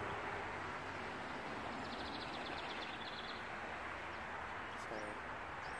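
Steady outdoor background noise, with a bird trilling a quick run of high notes for about a second, a couple of seconds in.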